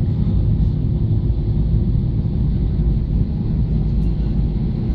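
Steady low rumble of a jet airliner's cabin with the engines running, heard from a passenger seat, with a faint steady hum under it.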